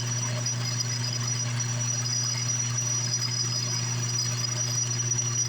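Homemade metal lathe running steadily at about 1500 RPM: a constant low hum with a thin, high, steady whine over it.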